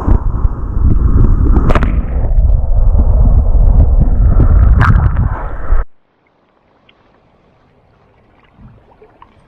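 Wind buffeting the microphone: a loud, uneven low rumble with a few sharp ticks, which cuts off abruptly about six seconds in, leaving only faint background with a few small clicks.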